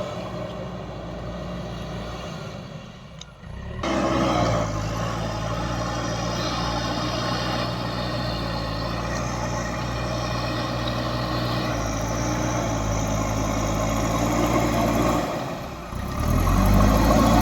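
Heavy diesel engine of construction machinery running steadily, dipping briefly about three seconds in and again near the end, then revving up louder in the last second or two.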